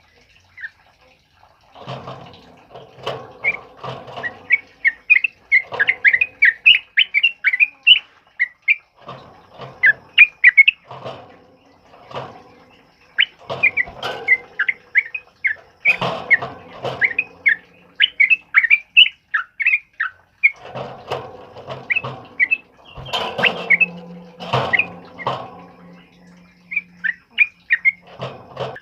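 Sooty-headed bulbul (trucukan) singing in fast runs of short, clear whistled notes, mixed with harsher, lower chattering calls, in bouts of a few seconds with brief pauses between.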